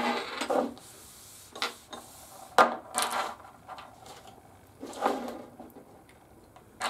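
Handling noise from small aluminium brackets fitted with roller bearings being moved and set down on a tabletop: a handful of rubs, scrapes and knocks, the sharpest about two and a half seconds in.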